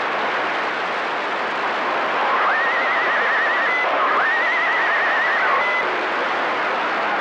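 CB radio receiver hissing with open squelch: steady static between transmissions. Around the middle come two warbling tones, each about a second and a half long, on the channel.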